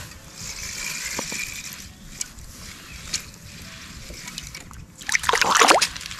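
Water sloshing and splashing in an ice-fishing hole as a hooked panfish is brought up, with a few small clicks and a loud burst of splashing about five seconds in.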